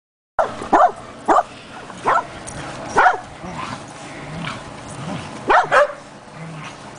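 Dog barking: about seven short, sharp barks, three in quick succession near the start, two more spaced out, then a quick pair near the end.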